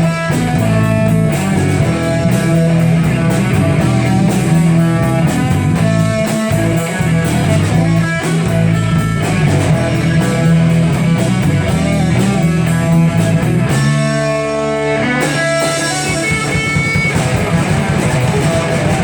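Live rock band playing, with electric guitar and bass over a steady drum beat; about two-thirds of the way through the drums drop out and held guitar notes ring on before the band comes back in.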